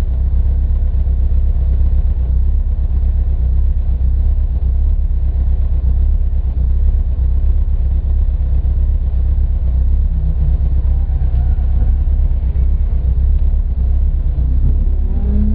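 Rally car running on a special stage: a steady, loud, deep rumble of engine and road noise without clear revs rising or falling.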